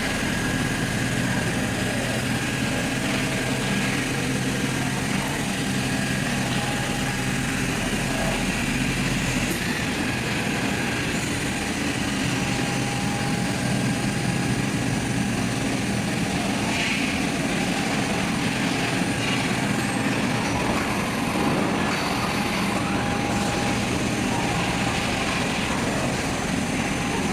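Automatic fabric spreading and cutting machinery (an IECHO GLSA multi-ply cutter) running with a steady mechanical hum and whir. The deepest rumble drops away about a third of the way through.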